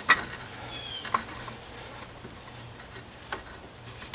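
A few sharp metallic clicks and ticks from a large C-clamp being worked to push the front brake caliper pistons back into their bores. The loudest click comes right at the start, with fainter ones about a second and about three seconds in.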